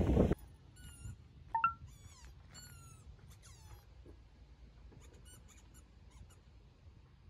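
A squeaky dog toy squeaking a few times in short high squeaks. The loudest is a quick pair about a second and a half in, with fainter falling squeaks over the next two seconds.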